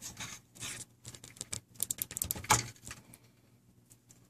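Small clicks and scrapes of plastic and metal as a 3D printer's hotend is worked by hand out of its printed plastic extruder mount, with a quick cluster of ticks about two seconds in and only scattered ones near the end.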